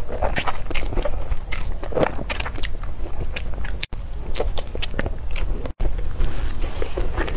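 Close-miked eating: a person biting and chewing food, a quick, irregular run of short crunchy and wet mouth sounds. The sound cuts out for an instant twice, about four and six seconds in.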